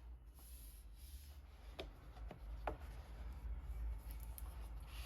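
Album packaging being handled: soft rubbing and rustling, with three quick clicks near the middle, over a steady low hum.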